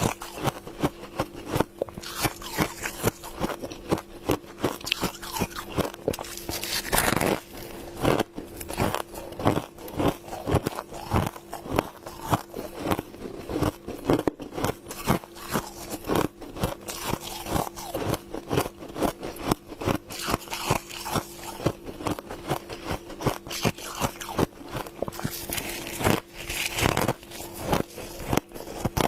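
Close-up crunching and chewing of a mouthful of humidifier frost: a quick, irregular run of crisp ice-crystal crunches, with a faint steady hum underneath.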